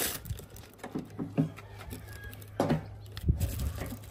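Handling noise of a bagged replacement headlight being worked into a car's front end: the plastic bag crinkles and rustles, with a few sharp knocks of plastic against the body, the loudest two about halfway and three quarters through.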